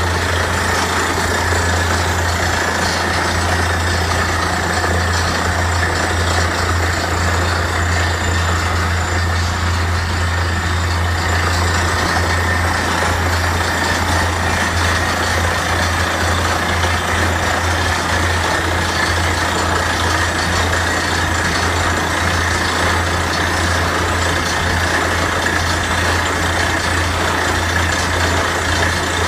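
Borewell drilling rig running steadily at work, its heavy engine giving a constant low hum under a dense machine noise.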